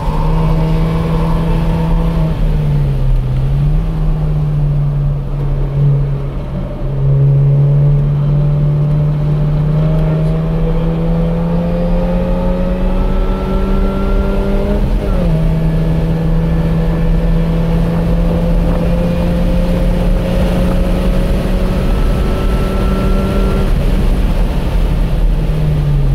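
Car engine pulling hard through a race-track lap, heard from inside the car over wind and road noise. Its note climbs steadily, drops suddenly about halfway through with an upshift, climbs again, then falls away near the end as the car slows.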